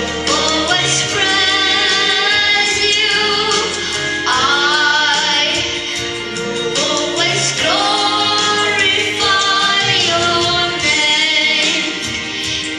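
A young girl singing a solo into a handheld microphone over instrumental accompaniment, with held notes and pitch glides in the melody.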